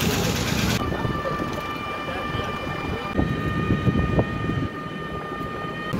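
Battery e-rickshaw riding along a street, its motor giving a steady whine with a set of even overtones from about a second in, over low rattles and knocks of the vehicle's body on the road.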